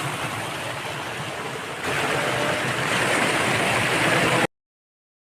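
Steady rushing of a waterfall, a dense hiss of falling water that gets louder about two seconds in and then cuts off abruptly near the end.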